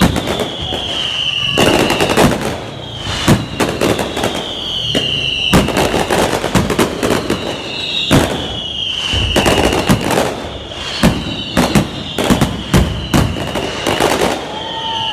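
Fireworks display: a rapid run of sharp bangs and crackles, with a high whistle sliding down in pitch every two to three seconds.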